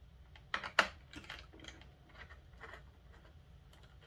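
Light clicks and ticks of hands handling wires and spade terminals at a power supply's screw terminal strip. Two sharper clicks come under a second in, then fainter scattered ticks.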